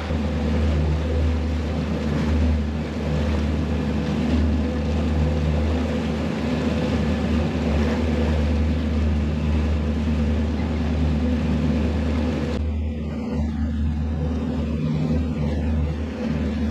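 Twin Mercury Verado 250 hp V8 outboards running steadily at trolling speed, a low, even drone. A rushing hiss lies over it and cuts off suddenly about three-quarters of the way through.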